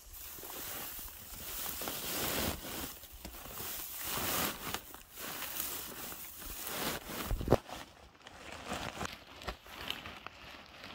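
Dry grass rustling and crackling as it is handled and pushed into a woven plastic sack, with many small crackles and one sharp thump about seven and a half seconds in.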